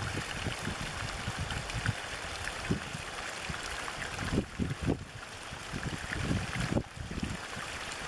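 A small stream of water pouring over a bank into a shallow pool, rushing steadily with irregular low splashing.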